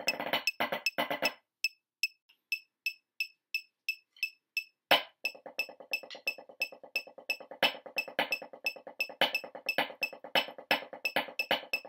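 Wooden drumsticks playing fast rudiment strokes on a drum practice pad, stopping a little over a second in. A metronome then ticks alone at a quick, even pace for about three and a half seconds. A loud accented stroke about five seconds in starts a trip-accent paradiddle, played against the metronome.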